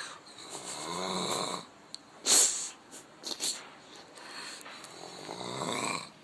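Loud snoring: two long, rattling snores about four seconds apart, with a short, sharp breath, the loudest sound, between them.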